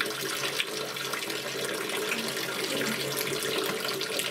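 Bathtub tap running steadily, water pouring into the tub.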